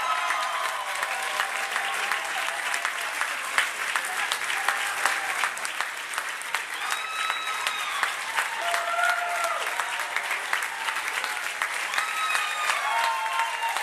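A large crowd clapping steadily, with a few voices calling out above the clapping now and then.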